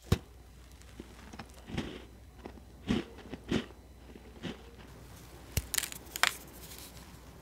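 A sharp click at the start, then several separate crisp crunches of butter shortbread. About six seconds in, a shortbread finger is snapped in two by hand with a brittle, crumbly crackle.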